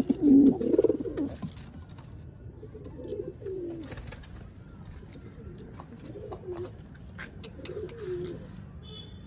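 Domestic pigeons cooing: a loud, close run of coos in the first second and a half, then three fainter coos spread over the rest, with a few light clicks.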